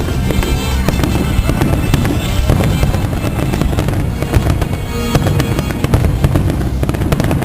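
Fireworks going off in rapid succession, with many bangs and crackles, over loud music from the show's sound system.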